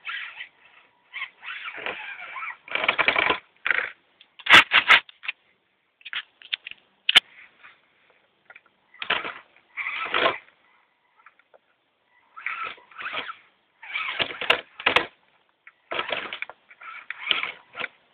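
Electric motor and gears of an Axial SCX10 Honcho RC scale crawler with a 19-turn brushed motor whining in a series of short throttle bursts with gaps between, and a few sharp clicks.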